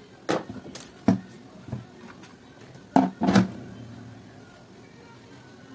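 Sharp plastic clicks and knocks as a Kenwood hand mixer's plastic housing and internal gear assembly are handled and pulled apart. There are several separate knocks, with the loudest pair about three seconds in.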